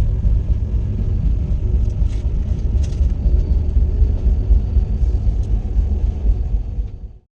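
Passenger train running, a steady heavy low rumble with a faint hum above it; it cuts off suddenly near the end.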